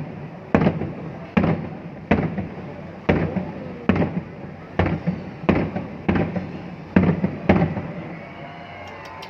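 Aerial fireworks bursting in a steady series, about ten sharp bangs a little under one a second, each with a short echoing tail. The bangs stop shortly before the end.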